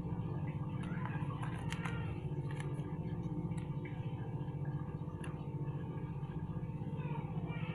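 Plastic and foil packets crackling and clicking as they are handled, with scattered sharp crinkles, most of them in the first few seconds, over a steady low hum.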